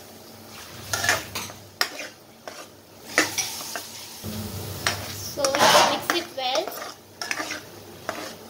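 Metal spatula stirring and scraping thick spinach paste and paneer cubes around a dark frying pan, with irregular scrapes and knocks against the pan and a sizzle from the paste cooking in oil. The loudest stretch of scraping comes a little past halfway.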